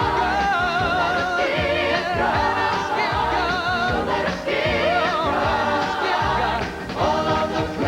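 Gospel song with voices holding wavering, vibrato notes over full instrumental backing and a steady bass line, without clear words.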